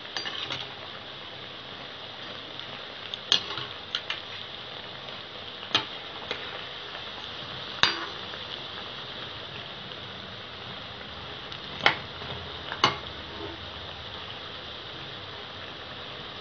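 Urad dal vadais deep-frying in sunflower oil in a metal kadai, a steady sizzle, with sharp clinks every few seconds as a metal slotted spoon strikes the pan while the vadais are turned.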